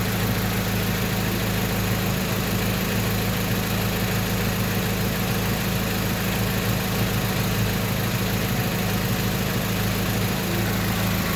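Mitsubishi 4G92 inline-four idling steadily while it warms up toward normal temperature, its cooling system still being bled of air bubbles after a thermostat fit.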